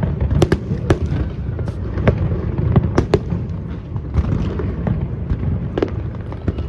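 Aerial fireworks going off: a rapid, irregular series of sharp bangs and crackles over a continuous low rumble.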